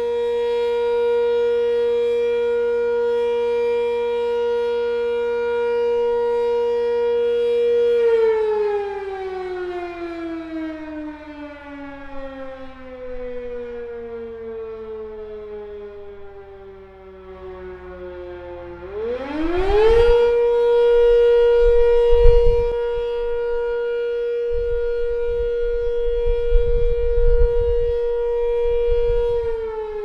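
Sentry 10V eight-port electromechanical fire siren sounding a wail. It holds a steady full-pitch tone, winds down in a slow falling pitch for about ten seconds, spins back up to full pitch in about a second, holds again, and starts to wind down once more near the end.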